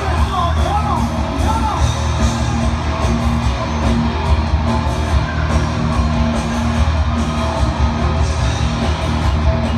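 Loud live concert music heard from the audience, with a heavy, steady bass line and guitar, and a voice singing briefly near the start.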